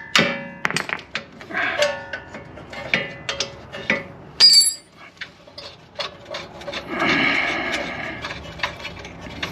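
Steel hand tools and sockets clinking and rattling as they are handled, with a sharp ringing clink about four and a half seconds in, then a denser rattle over the last few seconds.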